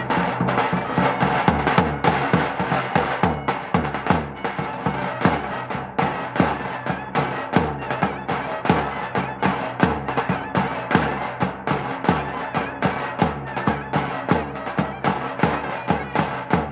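Davul and clarinet playing a lively folk dance tune (oyun havası): regular davul beats under a sustained clarinet melody.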